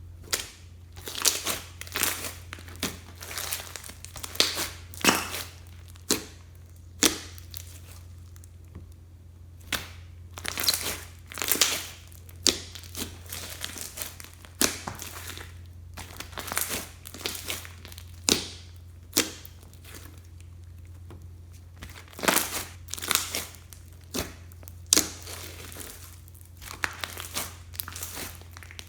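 Hands kneading and pressing slime mixed with makeup and clay, making irregular sticky pops and crackles, sometimes in quick clusters. A faint low hum runs underneath.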